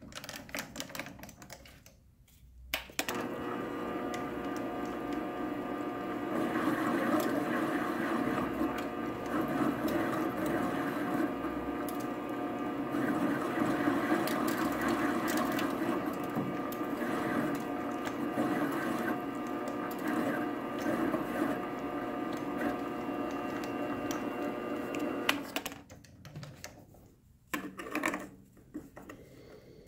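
Small benchtop metal lathe starting up about three seconds in and running steadily with a whining motor while a washer on an arbor in the chuck is turned down a touch, then stopping near the end. A few light clicks of metal parts being handled follow.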